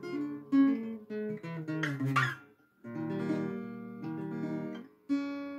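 Acoustic guitar playing the closing blues lick of the song: a run of picked notes, a brief pause, then a strummed chord left to ring for about two seconds, and one last note near the end.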